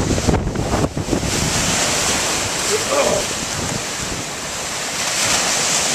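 Hurricane Irene's wind buffeting the microphone over storm-surge waves washing in on the bay shore. The low wind rumble is heaviest in the first second or so, then settles into a steady rush of wind and surf.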